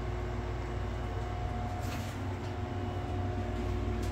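Steady mechanical hum of an air conditioning unit running, a low drone with a few constant tones, with a brief faint click about two seconds in.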